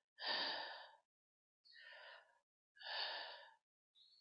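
A woman breathing heavily and deeply close to a headset microphone: three long audible breaths about a second apart, the first and third stronger, then a faint one near the end.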